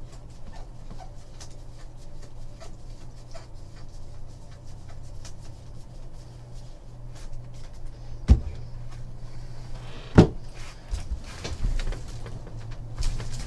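Trading cards being handled and sorted, with faint light clicks, then two sharp knocks about eight and ten seconds in, over a steady low hum.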